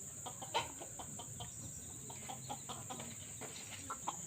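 Faint, scattered short clucking calls from chickens, with a steady high whine underneath.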